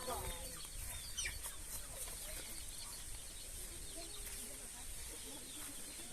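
Quiet outdoor ambience with chickens clucking now and then, a few short bird-like calls and a steady low rumble underneath.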